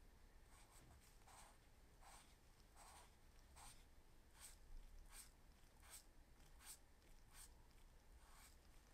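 Faint, repeated brushing strokes of a gloved fingertip swiping across a laptop touchpad to scroll, about one stroke every three-quarters of a second.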